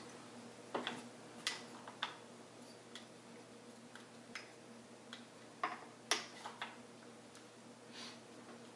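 Scattered faint clicks and taps of a small screw being worked by hand through drilled holes in a metal detector's shaft tube, the loudest a little after six seconds in.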